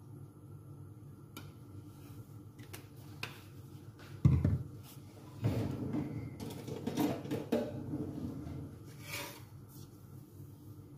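Kitchen handling noises: one sharp thump about four seconds in, then a few seconds of clattering and knocking, and a lighter click near the end, over a low steady hum.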